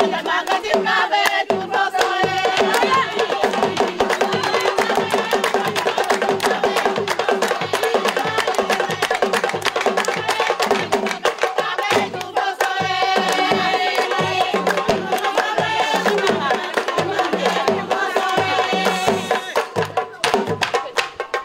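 Folk music: voices singing over fast, dense percussion with a deep beat repeating a few times a second.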